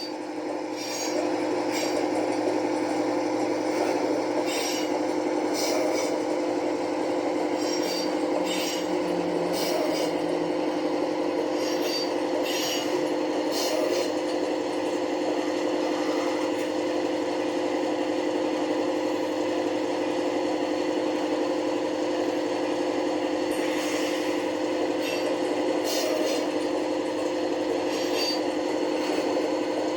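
Model Class 55 Deltic's DCC sound decoder playing the diesel engine sound running steadily through the loco's small speaker. The flange-squeal effect (F7) comes in over it now and then as high squealing.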